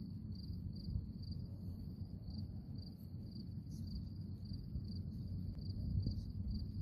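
A cricket chirping at an even pace, about two chirps a second, over a low background rumble.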